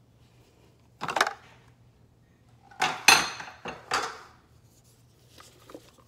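Plastic lid of a food processor being lifted off its bowl and handled: clattering knocks of hard plastic about one, three and four seconds in. Near the end, light taps of a silicone spatula scraping the sides of the plastic bowl.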